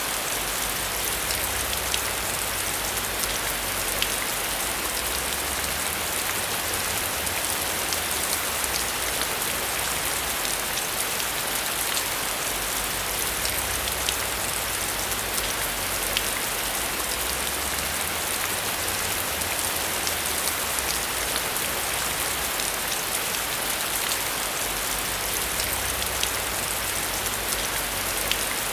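Steady heavy rain, with sharp ticks of individual drops hitting a surface throughout and a low rumble underneath that swells and fades.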